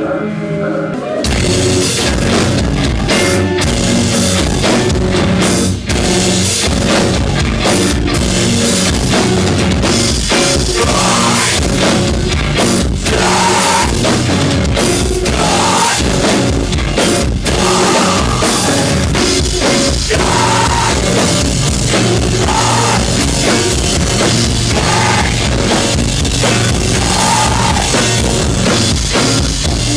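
Loud live rock: a drum kit played hard with crashing cymbals over a dense keyboard drone. The drums come crashing in about a second in, after a quieter sustained keyboard tone.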